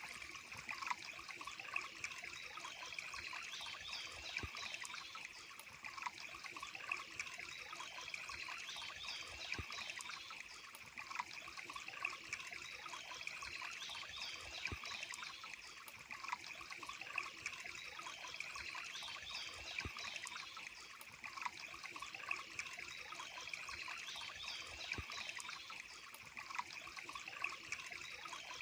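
Water trickling steadily, as from a small stream or waterfall, with short bird chirps recurring every few seconds.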